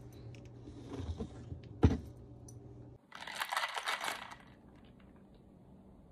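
A single sharp knock, then about a second and a half later a brief clatter of small hard objects lasting about a second.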